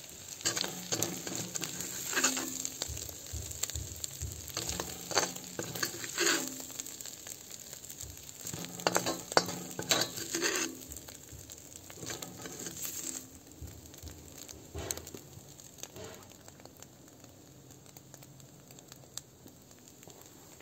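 Mushroom omelet sizzling in a black wok over a wood fire while a metal spoon scrapes the pan and scoops the food out. The scrapes come every second or so for about ten seconds, then grow fewer and fainter.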